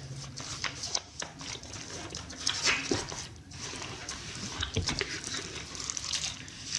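Small cardboard box and its inner packaging being opened and handled by hand: irregular rustles, scrapes and light taps.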